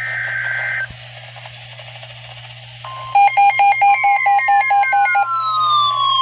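NOAA Weather Radio emergency alert: the end of a SAME data burst, a harsh electronic screech, cuts off under a second in and gives way to radio static. Just before three seconds in the steady 1050 Hz warning alarm tone begins. Soon after, it is joined by rapid beeping and slowly falling siren-like sweeps.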